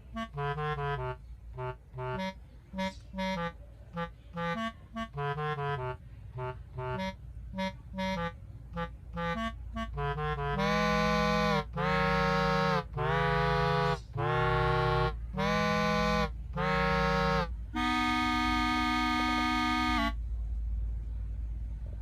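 Background music: a tune of quick short notes, then a run of louder long held chords about a second each, ending on one chord held for about two seconds that cuts off shortly before the end.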